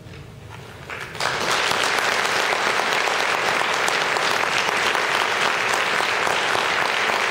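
The concert band's final chord dies away in the hall, and about a second in an audience breaks into steady applause.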